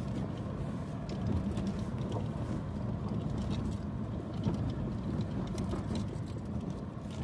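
Car cabin noise while driving slowly over a rough gravel road: a steady low rumble of engine and tyres, with faint scattered ticks and rattles from the gravel and the car's interior.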